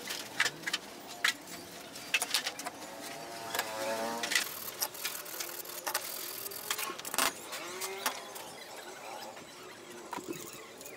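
Scattered sharp metal clicks and clinks of hand tools and parts being handled on a scooter engine, with a vehicle engine in the background that is loudest about four seconds in.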